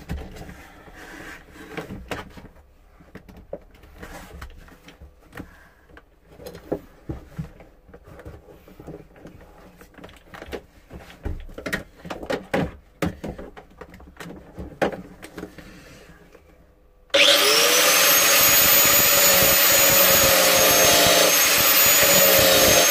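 Irregular knocks and rattles of things being handled. About seventeen seconds in, an angle grinder with its safety guard removed starts abruptly and runs loud and steady with a high whine, its pitch sagging slightly near the end.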